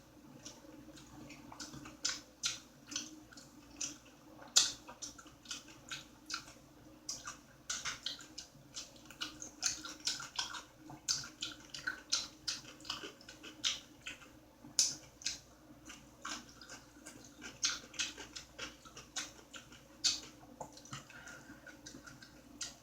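Close-miked eating sounds: wet chewing and sharp lip and tongue smacks, several a second in an irregular run, from a meal of eggs, Taylor ham, pickle and tomato. A faint steady low hum runs underneath.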